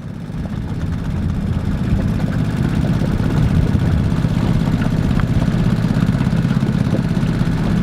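Boat's outboard motor running steadily as the boat moves, building up over the first second and then holding an even drone.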